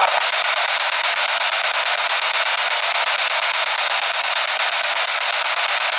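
P-SB7 spirit box sweeping through radio stations, giving a steady hiss of radio static from its small speaker.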